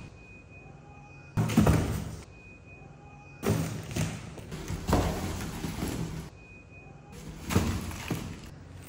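Large cardboard box knocking and scraping on a tiled floor as a small monkey pushes and clambers on it, in three loud bursts with quieter stretches between.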